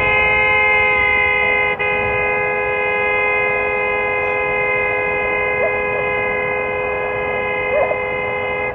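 Car horn held down in one long, steady blare, two notes sounding together, briefly interrupted about two seconds in.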